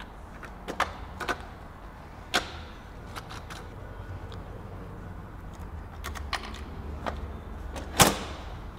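Clicks and clunks of plastic and metal parts on a folding 1981 Honda Motocompo minibike being handled and set into place as it is unfolded: a few sharp knocks spread through, with the loudest clunk near the end.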